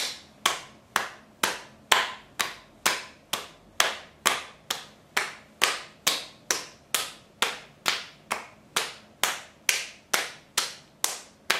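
Open palms slapping the cheeks in a steady rhythm, about two pats a second: a face-knocking exercise to bring blood to the skin.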